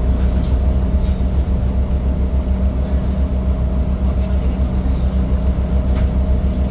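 Cummins ISL9 diesel engine of a New Flyer D40LFR transit bus idling steadily while the bus stands still, heard from inside the passenger cabin as an even low hum with a faint steady higher tone.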